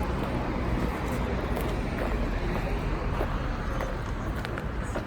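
Steady city street traffic noise: a continuous low rumble of cars and engines, with a few faint clicks.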